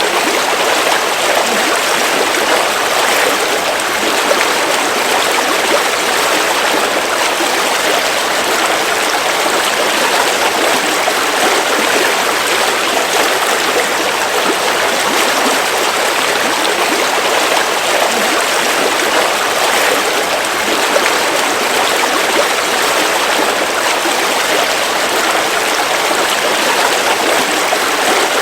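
River water flowing over rocks: a steady, even rush of running water.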